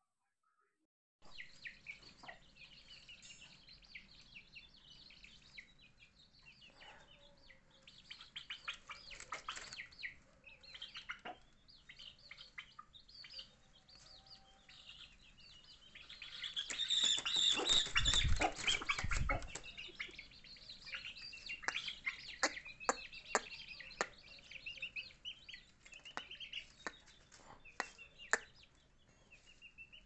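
Chickens peeping and clucking in short, repeated chirps, starting about a second in. About halfway through, a loud flurry of wing-flapping and handling noise lasts roughly three seconds.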